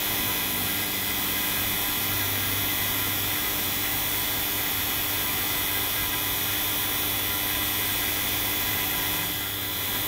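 A refrigerant vacuum pump running steadily with an even motor hum and hiss, evacuating a heat pump's refrigerant circuit.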